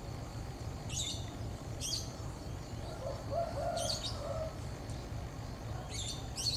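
Short, high bird chirps, five in all, spaced a second or two apart, over a low steady rumble.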